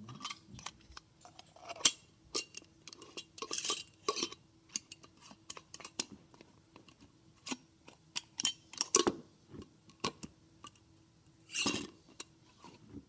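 A metal mason jar lid and screw band being handled and screwed onto a glass jar: irregular clicks, clinks and brief scrapes of metal against glass.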